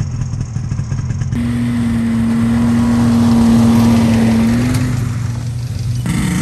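Snowmobile engines running. About a second in, a snowmobile drives past, its engine noise building and then fading, with a steady drone.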